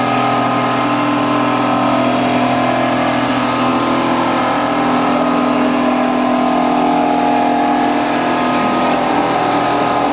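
Large multi-needle quilting sewing machine running steadily, its motors giving an even hum with several held tones.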